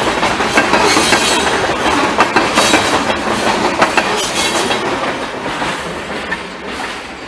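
Freight train's last covered hopper cars rolling past, their wheels clacking over the rail joints. The sound fades steadily as the end of the train moves away.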